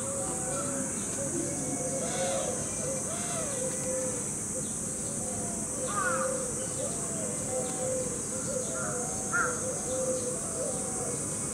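Outdoor summer ambience: a steady high-pitched insect drone, with many short overlapping calls and a few bird chirps, the clearest about six and nine seconds in.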